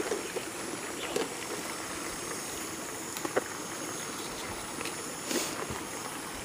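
Steady rushing hiss with a few light clicks and taps scattered through it, and a brief louder rush about five seconds in.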